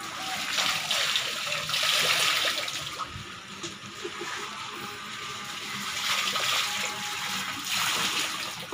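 Papaya-leaf soak poured from a plastic dipper through a plastic basket strainer, splashing onto the surface of a tarpaulin pond's water. Two pours: the first starts about half a second in, the second about six seconds in, with a quieter trickle between.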